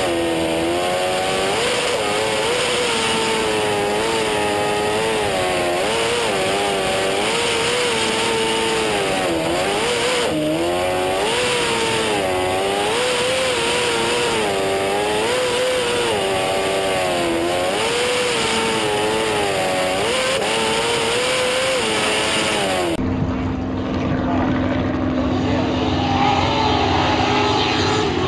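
Jet sprint boat's V8 engine heard from on board, its note rising and falling again and again as the throttle is worked through the tight turns. About 23 seconds in it gives way to a sprint boat's engine heard from trackside, steadier, with its note climbing near the end.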